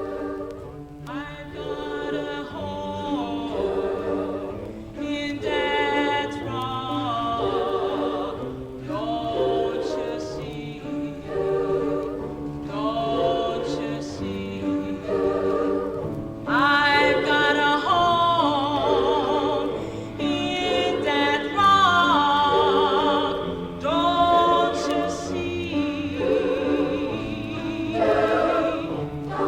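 A mixed high-school choir singing a cappella in sustained phrases with vibrato, as recorded on an early-1960s record.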